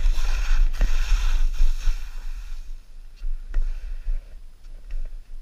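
Skis scraping and hissing over packed snow on a downhill run, with wind buffeting the camera's microphone. The scraping is strongest for the first two and a half seconds, then eases to lighter scrapes and a few clicks.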